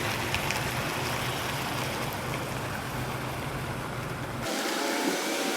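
A vehicle engine runs steadily with a low hum under a broad hiss. About four and a half seconds in, the sound cuts off abruptly to a quieter background without the hum, with a faint steady whine.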